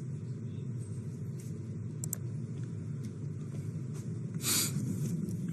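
Steady low background rumble of room or line noise, with a faint click about two seconds in and a short burst of hiss about four and a half seconds in.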